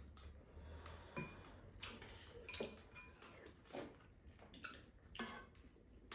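Quiet eating: spoons and chopsticks tapping and scraping against bowls and a pan. Scattered light clicks and clinks, a few with a short ring.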